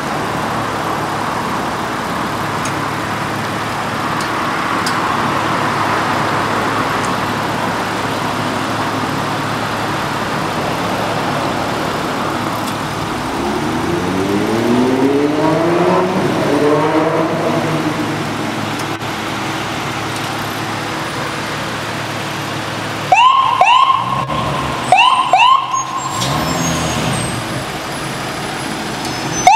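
Fire engine leaving the station: a steady traffic hum, then a heavy engine revving up with rising pitch in the middle. Near the end come two pairs of short, loud warning blasts from the fire engine as it noses out of the bay to respond with lights and siren.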